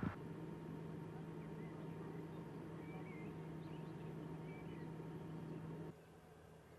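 A steady, even engine hum with a constant low tone, which stops suddenly near the end. Birds chirp briefly over it in the middle.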